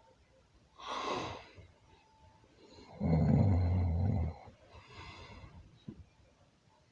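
Snoring: a breath about a second in, then a loud, low, rattling snore lasting just over a second, followed by a softer breath.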